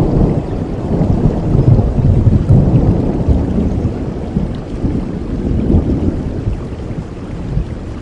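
Rolling thunder rumbling over steady rain, loudest a couple of seconds in and fading toward the end.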